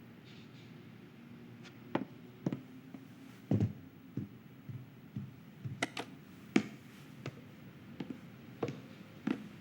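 Film sound-effects track: about a dozen soft, irregularly spaced taps and thuds over a faint low hum. The taps start about two seconds in, and the strongest comes a little past a third of the way through.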